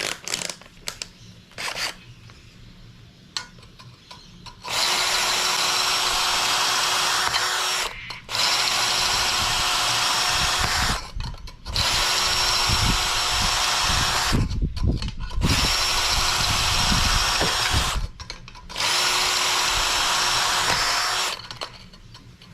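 Power drill running in five bursts of a few seconds with short pauses, boring into the honeycomb core of a catalytic converter to break it out, with low knocking in the middle runs. A few clicks and knocks of handling come before the drilling starts, about five seconds in.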